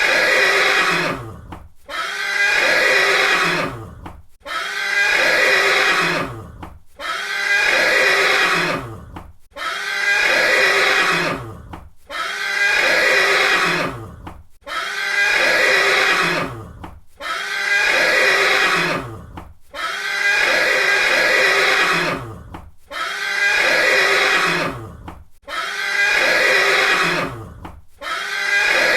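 A horse neighing, the same whinny repeated about a dozen times, one every two and a half seconds with a short gap between calls.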